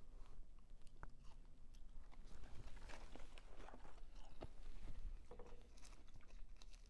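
A person chewing and biting fast food close to the microphone, with irregular wet mouth clicks and small crunches.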